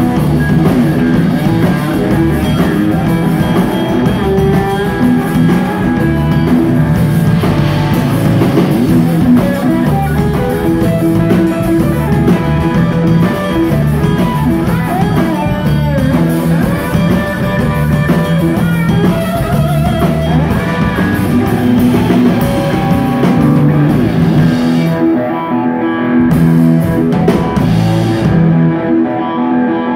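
Live instrumental rock from a guitar–bass–drums trio: an electric slide guitar on a Stratocaster-style guitar plays lead, with gliding, sliding notes over a driving bass and drum-kit groove. The high cymbal wash thins out twice near the end.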